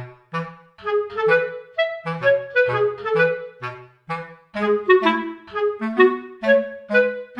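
Background music: a clarinet-led tune in short, separate notes, several a second, over a low bass line.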